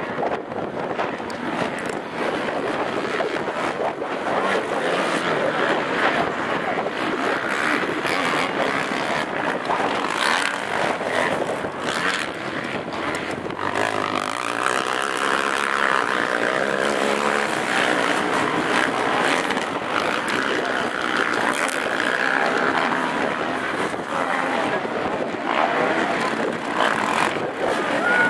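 Several racing quad (ATV) engines running hard together, with revs rising and falling as the quads accelerate and pass, clearest in the middle stretch.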